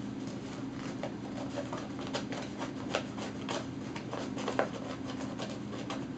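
Paper towel roll crinkling and tearing under a cat's claws and teeth: irregular scratchy rustles and crackles, a couple of them sharper than the rest.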